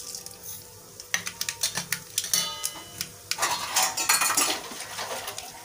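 Mustard seeds tipped from a small steel cup into hot sesame oil in a kadai, crackling and popping as they begin to splutter, with a short metallic ring of the cup against the pan. The sizzle thickens from about three and a half seconds in.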